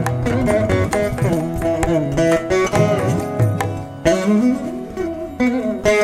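Background instrumental music led by a plucked string instrument over a steady low beat; about four seconds in the low part drops out briefly while a string note bends in pitch, then the beat returns.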